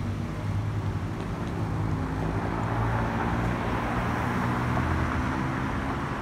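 Jet noise from a Boeing 737-800's CFM56-7B turbofans climbing out overhead: a steady rumble with a hiss that swells slightly about halfway through.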